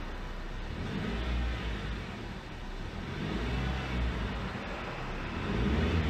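Suzuki Swift (HT81S) running, with a low rumble that swells and eases and grows louder near the end; this is the abnormal noise the owner reports the car developed.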